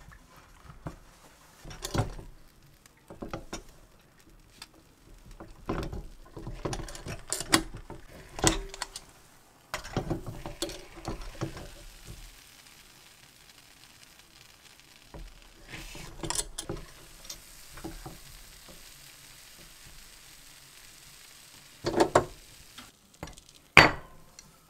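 Kitchen handling sounds: clinks and knocks of dishes and of a hinged cast-metal stovetop waffle pan being opened and shut, with a faint sizzle while sugared croissant dough cooks in it. Two sharp knocks near the end as the pan is opened over a plate and the croffle is turned out.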